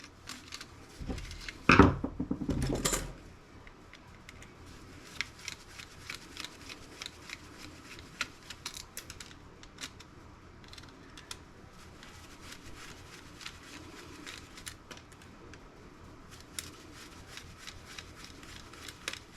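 Small parts of a laptop's CD/DVD-ROM drive being taken apart by hand. A couple of louder knocks and clatters come in the first three seconds, the loudest nearly two seconds in, followed by a steady run of small clicks and ticks of metal and plastic parts being handled.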